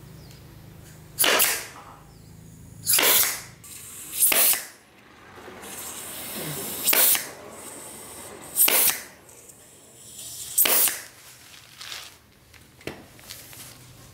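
Six short bursts of pressurised spray hissing, each under half a second and spaced one to two seconds apart, with a longer, quieter hiss between the third and fourth.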